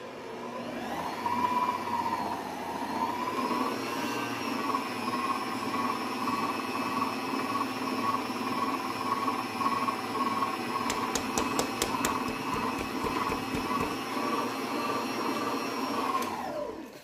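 Electric mixer motor beating cookie dough after the flour is added, working it until it turns crumbly. It picks up speed in the first second or so, runs steady with a motor whine, and slows to a stop near the end.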